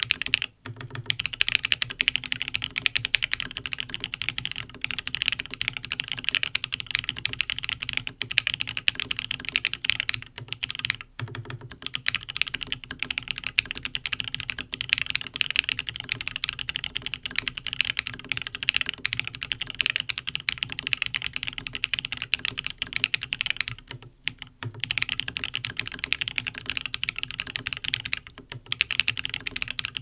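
Continuous fast typing on a Bear65 polycarbonate gasket-mount custom keyboard with lubed Bsun Holy Panda tactile switches, resting on a cork desk pad that adds a lot of desk sound. The key clicks are dense and crisp, broken by a few short pauses.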